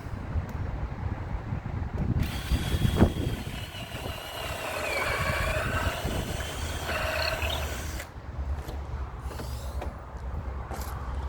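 Power drill running for about six seconds, starting and stopping abruptly, its whine sagging in pitch midway as it comes under load, with a sharp knock near the start.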